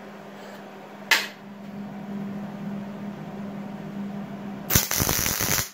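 MIG welder striking an arc on steel plate: a dense, loud crackle for about a second near the end, after a single sharp click about a second in.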